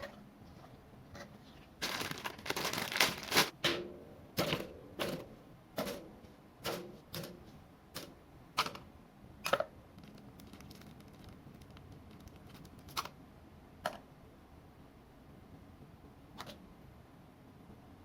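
Sharp plastic clicks and snaps from a Gunpla model kit's parts being handled and fitted together: a quick flurry of clicks, then single clicks about every half second to a second, and a few lone clicks near the end.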